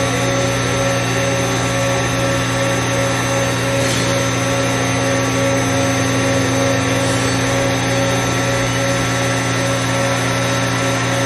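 Mori Seiki GV-503 CNC vertical machining center running under power, a steady machine hum and whine that holds one even pitch throughout, with a faint click about four seconds in.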